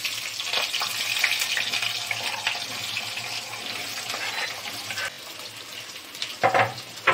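Chopped onions dropped into hot oil in a kadhai, sizzling as they fry. The sizzle is loudest at first and eases off after about five seconds, with a short, louder sound near the end.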